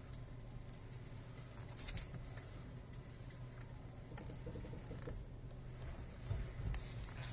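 Fiat Grande Punto steering making faint clicks and a short creak about four and a half seconds in as the wheel is turned, over a low steady hum.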